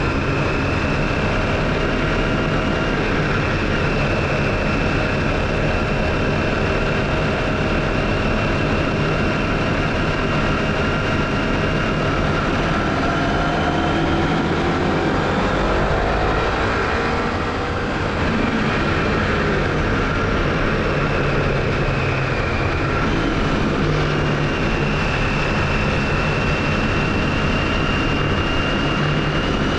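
2007 Honda CBF500's parallel-twin engine running steadily while the motorcycle is ridden. About halfway through, the revs fall and the sound dips briefly, then picks up again.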